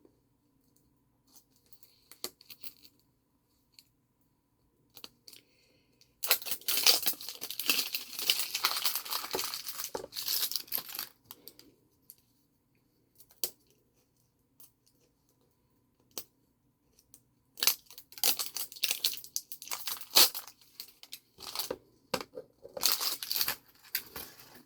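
Plastic wrapping of a toy surprise egg being torn open by hand and crinkled, in two long spells with a quiet pause and a few small clicks between.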